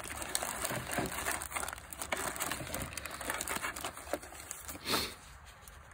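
Clear plastic wrapping around packets of self-adhesive electrode pads crinkling as they are handled and pulled from a hard plastic case, with one louder rustle near the end.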